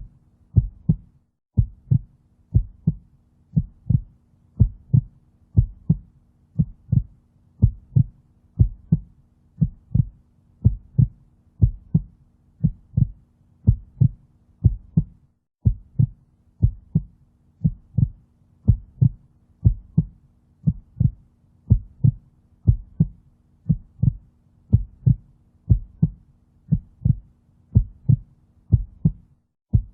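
Heartbeat sound effect: a steady double thump, lub-dub, about once a second, over a faint low hum.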